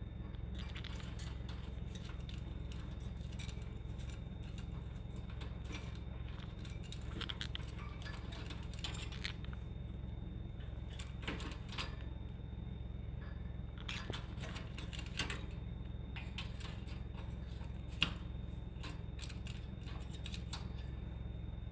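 Scattered light clicks and small scratches from a pet parrot being petted, over a steady low hum, with one sharper click about eighteen seconds in.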